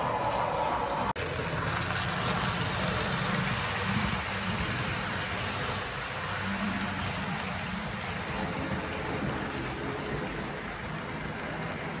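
Model freight train cars rolling past on the track: a steady rumble and clatter of small wheels on rail. It starts after a sudden cut about a second in.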